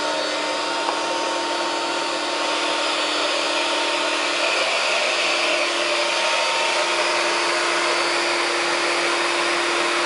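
Carpet extraction cleaner's vacuum running steadily, drawing water up from the carpet through the clear-headed floor wand: a constant rush of suction air with a steady hum under it.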